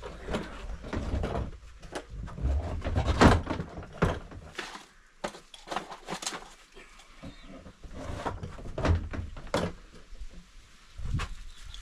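Irregular clicks and knocks from handling tools, screws and plastic parts while working on the hinges of a plastic storage box.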